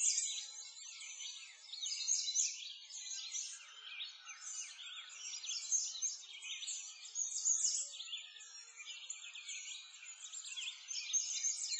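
Dense chorus of many small birds chirping and twittering: quick high chirps overlapping without a break.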